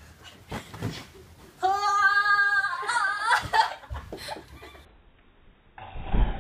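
Pillow fight: soft thuds of pillows and bodies hitting a bed, broken about a second and a half in by a girl's long, high-pitched cry on one held note, then a wavering cry. A dull thump comes near the end.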